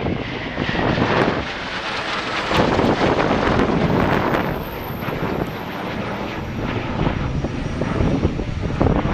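Eurofighter Typhoon's twin turbofan jet engines running loudly, with a faint whine that falls slowly over the first two seconds.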